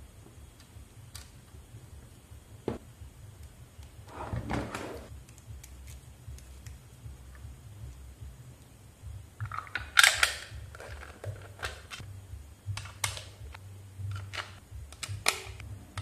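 Scattered clicks, taps and rustles of hands handling wires and a screwdriver at the terminal screws of a control-panel wiring board, over a low steady hum. Louder rustling comes about four seconds in, around ten seconds in, and in a run of clicks near the end.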